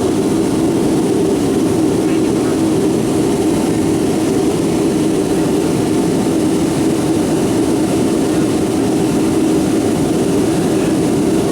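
Steady cabin noise of a Boeing 757-200 airliner airborne after takeoff: an even, low rush of jet engines and airflow heard from inside the passenger cabin.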